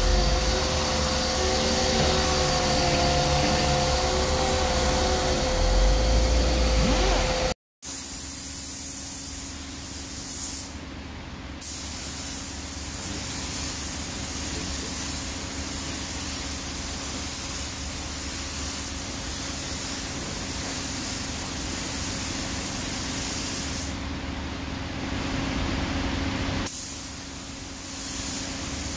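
Orbital sander running with a steady whine on filler on a bus body panel. After a break about eight seconds in, the steady hiss of a compressed-air paint spray gun spraying the panel, easing twice between passes.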